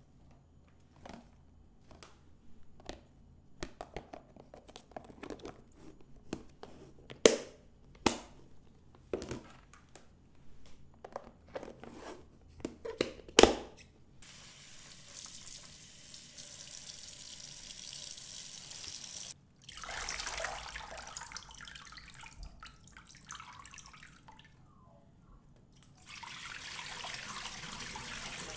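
A run of light clicks and knocks, with three sharp louder knocks, as things are handled in a kitchen; then water running steadily from a tap into a sink, stopping briefly twice.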